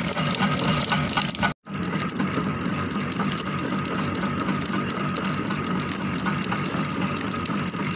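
Engine-driven sugarcane crushing mill running steadily under load. The sound breaks off for a moment about a second and a half in, then carries on unchanged.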